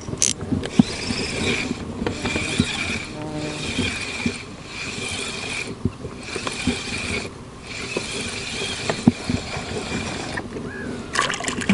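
Spinning reel being cranked, its gears whirring in stretches of about a second with short pauses, as a hooked fish is reeled in on a bent spinning rod.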